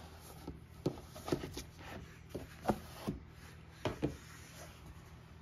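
Cotton-gloved hands handling a cardboard watch box: rubbing and sliding sounds with a string of light knocks and taps, about eight of them, as the box is drawn out of its packaging and set down on a table.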